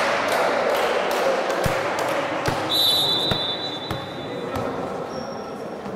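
Volleyball play in a gym: the ball thuds against hands or floor several times over a background of children's voices, and a referee's whistle sounds for about a second and a half near the middle.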